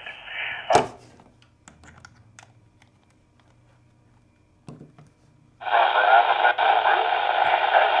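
A net controller's voice through a handheld radio's speaker cuts off with a pop under a second in. A few clicks and taps follow as the antenna connector is moved from one handheld to the other. About five and a half seconds in, a TYT 8000D handheld takes up the same repeater, and band-limited radio audio comes from its speaker.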